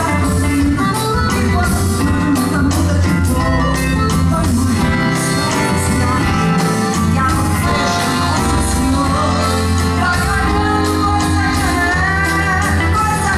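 A live band playing a fast Brazilian number with a steady drum beat and a melody that rises and falls over it.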